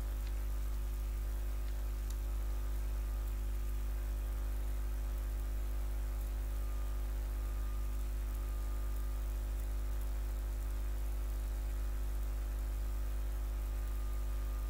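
Steady low electrical hum with hiss, unchanging throughout: mains hum and noise in the recording.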